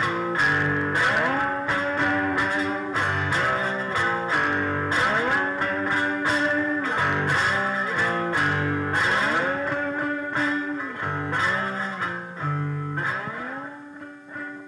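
Three-string fretless cigar box guitar playing a blues instrumental, its notes sliding up into pitch over low bass notes plucked at regular intervals. It winds down near the end, the last note ringing out and fading.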